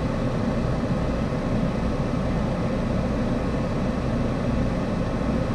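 Car engine idling, a steady low rumble that does not change.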